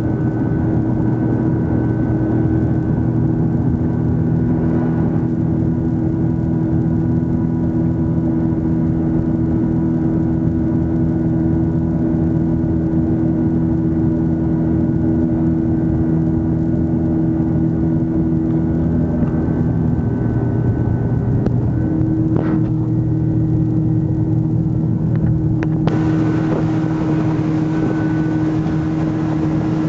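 Johnson 115 outboard motor running steadily under way, pushing the boat along at a constant speed, its pitch shifting a little about two-thirds through. A rushing hiss of wind and water rises near the end.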